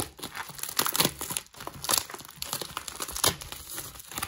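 Plastic packaging crinkling and rustling as a mystery bag is opened, with several sharp crackles.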